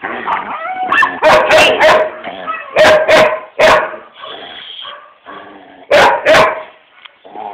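German shepherd "talking": a run of short barks and yips with whiny vocalizing in between, in loud clusters about a second in, around three seconds in, and again about six seconds in.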